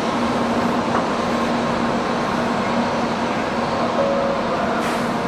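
N700A Shinkansen train standing at the platform, its onboard equipment and air-conditioning giving a steady hum: a low tone over an even rushing noise.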